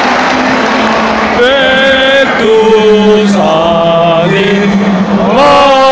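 Stadium crowd din, then about a second and a half in, slow music in long held notes starts over the stadium sound system: the pre-match national anthem during the flag ceremony.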